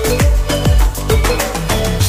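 Background dance music with a steady beat of deep kick drums that drop in pitch, about two a second, under a repeating melody.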